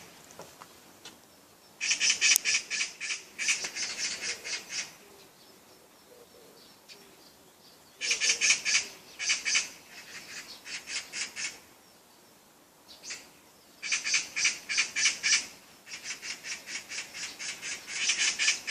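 A bird calling in four bouts of rapidly repeated high notes, each bout lasting a couple of seconds, with short quiet pauses between them.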